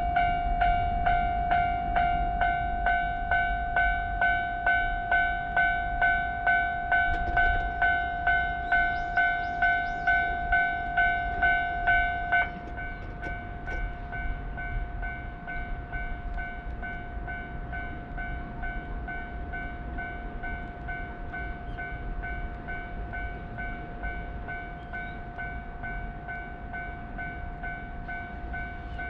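Japanese railway level-crossing warning bell ringing 'kan-kan' at about two strokes a second. About 12 seconds in it suddenly becomes quieter and keeps ringing, over a low rumble.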